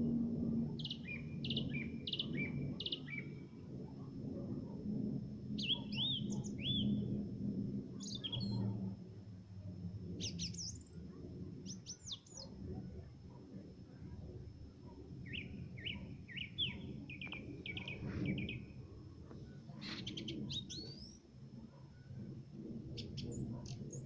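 Nightingale singing: separate phrases of rapid repeated notes and trills, a new phrase every few seconds, over a low steady rumble.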